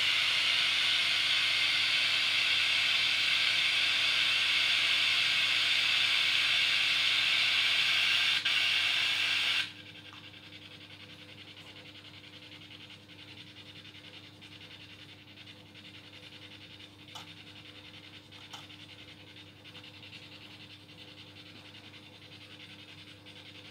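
White-noise static from a ghost-hunting spirit box, loud and steady hiss that cuts off suddenly about ten seconds in, leaving a faint hiss with a low steady hum.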